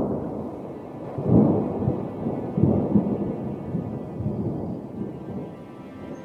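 Rolling thunder: deep rumbles that swell again about a second in and near the three-second mark, then slowly die away, with a faint steady high tone above them from about two seconds in.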